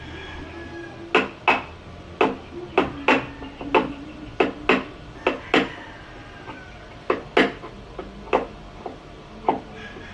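Hammer blows on wood: about ten quick, irregular strikes over the first half, then scattered single, lighter blows.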